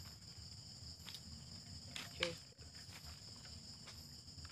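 Steady, high-pitched chirring of an insect chorus, such as crickets, with a few faint clicks. A brief voice sound comes about two seconds in.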